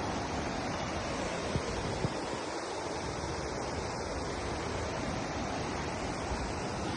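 Steady rushing outdoor noise with an uneven, rumbling low end, and two faint knocks about one and a half and two seconds in.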